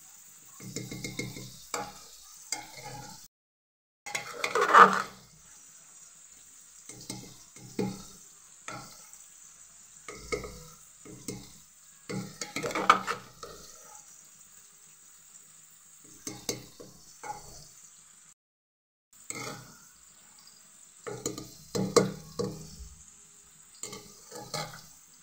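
A metal spoon stirring and scraping cooked pea pulao around inside a metal pressure cooker, in irregular strokes with scrapes against the pot, loudest at about five seconds and again near thirteen seconds. The sound breaks off completely twice, briefly each time.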